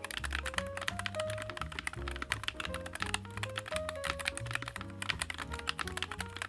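Fast, continuous typing on a NuPhy Air96 low-profile mechanical keyboard, a dense run of key clicks several to the second, with background music playing throughout.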